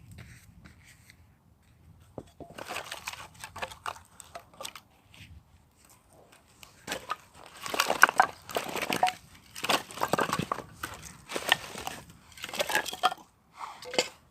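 Irregular crunching and crinkling in clusters of short sharp strokes, starting about two and a half seconds in and busiest in the second half.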